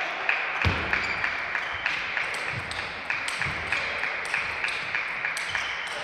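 Table tennis rally: the plastic ball clicks sharply off bats and table in quick alternation, a few times a second, over a steady hiss, with a few low thuds among the clicks.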